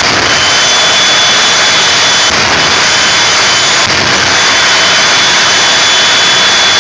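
Three jet engines of a jet-powered semi-truck tractor running at high power while it stands on the line: a very loud, steady rushing noise with a high turbine whine over it.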